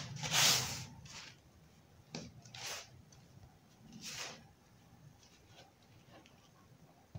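Hands crushing and crumbling dry, sandy baking soda clumps: a few short gritty crunches, the loudest about half a second in and others near two, three and four seconds, then only faint crumbling.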